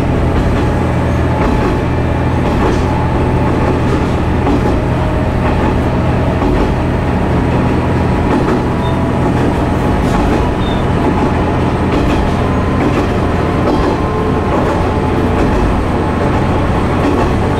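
Kuma River Railway KT-500 diesel railcar running along the line: a steady engine drone under the rumble of the wheels on the rails, with a few faint clicks over rail joints.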